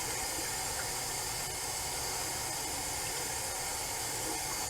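Water running steadily from a bathroom tap, rinsing lather off a razor blade.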